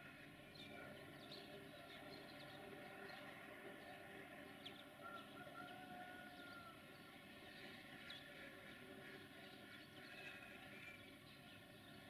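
Near silence: quiet outdoor ambience with a faint steady hum and scattered faint bird chirps.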